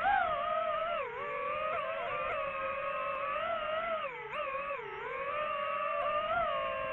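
FPV quadcopter drone's motors and propellers whining steadily, the pitch dipping and rising again a few times as the throttle changes in flight.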